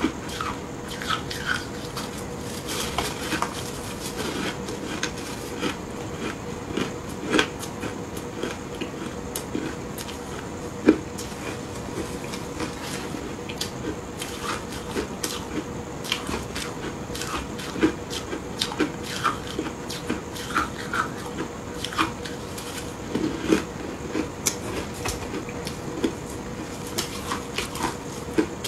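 Chunks of ice coated in matcha and milk powder being bitten and chewed: irregular crisp crunches and crackles, with a few louder cracks.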